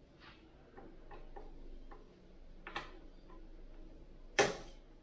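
Small clicks and light knocks of metal rifle parts being handled and fitted together. A few faint ticks come first, then a sharper click near the middle, then one loud click about four and a half seconds in.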